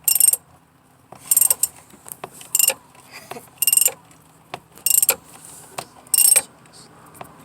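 Socket ratchet wrench clicking in six short runs about a second and a quarter apart as it is swung back and forth, driving in the purge valve's mounting bolt.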